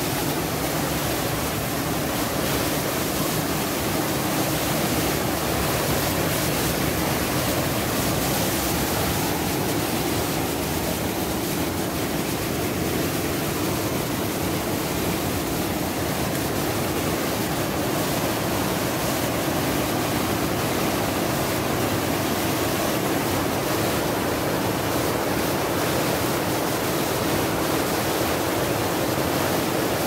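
Water rushing steadily over a small rocky waterfall and down a stream cascade.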